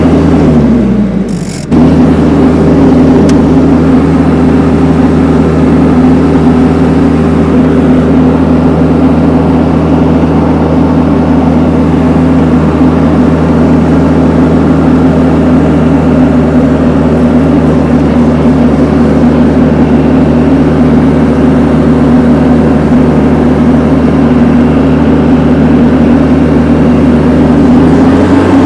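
Four-wheel-drive vehicle's engine running steadily under load while it drags a big pine log. About a second in, its pitch drops away briefly, then it comes straight back and holds an even note.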